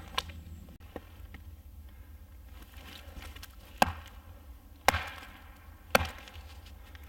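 Small axe chopping into a short log section set on a wooden chopping stump: three sharp strikes about a second apart in the second half.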